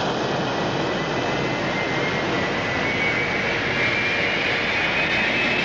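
Science-fiction spacecraft lift-off sound effect, the Eagle transporter's engines firing: a steady rushing noise with a thin whine that slowly rises in pitch.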